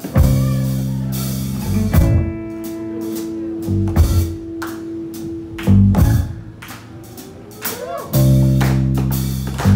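Rock band playing live on electric guitars, bass and drum kit: loud, sustained full-band chord hits about every two seconds, with a held guitar note ringing between them.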